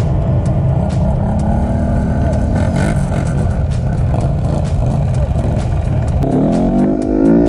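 Quad (ATV) engines running, with a steady low rumble from a quad climbing a sand hill. About six seconds in, an engine revs up sharply with a rising pitch.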